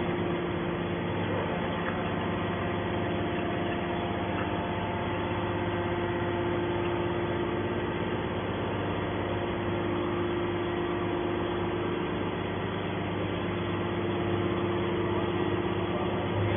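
Hydraulic can baler's motor and pump running with a steady, even hum.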